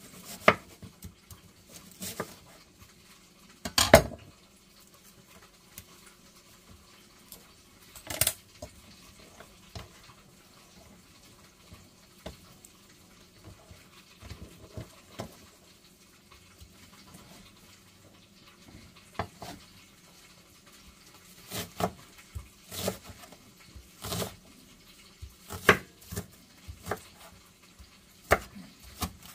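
Kitchen knife cutting a red onion on a wooden cutting board: irregular sharp knocks of the blade striking the board, a few seconds apart at first and coming more often near the end as the onion is chopped.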